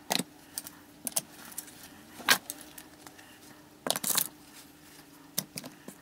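Metal pocket items, including a multitool, being set down one by one into a suede-lined wooden cigar box: a series of short sharp clinks and knocks, the loudest about two seconds in and a cluster around four seconds in.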